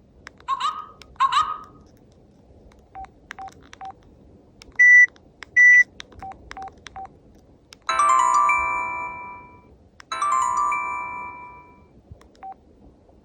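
Disney-themed menu sound effects from an au W33SA flip phone's speaker: short key beeps as buttons are pressed, two quick rising effects near the start, a pair of high beeps around the middle, and two ringing chime-like tones in the second half, each fading away over about two seconds.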